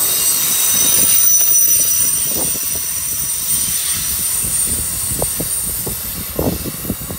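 An Amtrak Northeast Regional's passenger cars roll past and draw away. A steady rumble of wheels on rail carries thin, high wheel squeal that fades early, and the train noise slowly dies down as the last car goes by.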